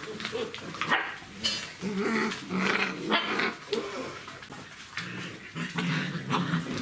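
An adult female Czechoslovakian wolfdog growling and giving short barks over and over: a warning correction, scolding puppies that tried to suckle.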